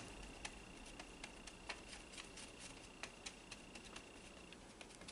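Faint, irregular light ticks of a flat paintbrush mixing acrylic paint on a plastic plate palette, over a faint steady high tone that stops near the end.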